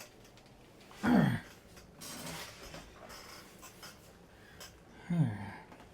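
Two short, low vocal sounds from a man, each falling in pitch, about four seconds apart, with faint scraping of a carving knife shaving poplar in between.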